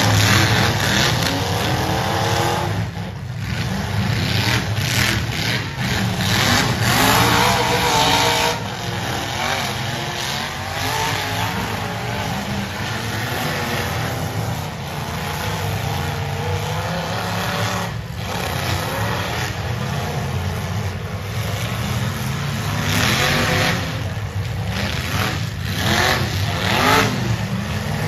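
Demolition derby cars' engines revving up and down over a steady low rumble, with occasional sudden bangs as the cars ram each other.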